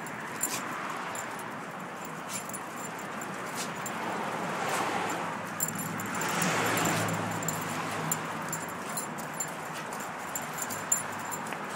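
A dog walking on a leash over concrete: scattered light clicks and jingles from its claws and collar tags over a steady background hiss. A low rumble swells briefly about six to eight seconds in.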